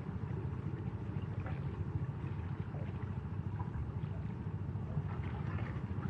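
Sea waves washing against the shore over a steady low rumble, with a couple of soft washes swelling up.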